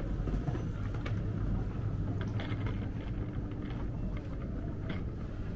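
Airport lounge ambience: a steady low rumble with a few faint clicks and knocks.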